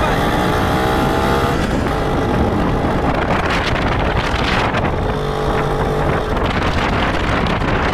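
A vehicle engine running at speed, its pitch climbing as it accelerates, with wind noise on the microphone.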